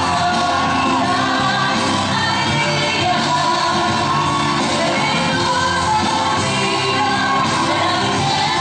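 A song with a singing voice, played loud and steady as dance music.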